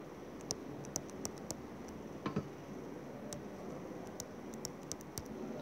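Light, irregular ticks of a stylus tip tapping on a tablet's glass screen during handwriting, over faint steady hiss.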